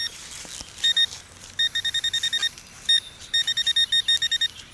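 Metal-detecting pinpointer beeping: short, steady-pitched electronic beeps, a couple singly and then fast runs of about nine a second, as the probe finds the target still in the hole rather than in the cut plug.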